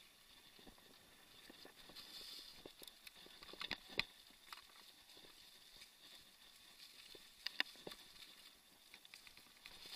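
Mountain bike rolling over a rough dirt trail: faint tyre noise and scattered rattling clicks, with sharp knocks about four seconds in and again at about seven and a half seconds.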